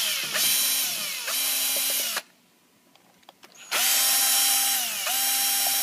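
Power drill-driver backing out screws from a golf-cart controller box: the motor whines in two runs with a pause of about a second and a half between, each run dipping in pitch briefly as the trigger is eased.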